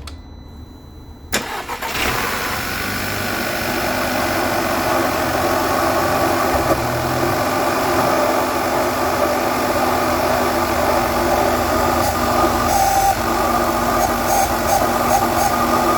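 Audi A3 8P's 1.8 TFSI (CDAA) four-cylinder turbo petrol engine starting cold after standing overnight: it catches suddenly about a second in, then idles with the irregular idle and extraneous noises that the owner describes on this cold start.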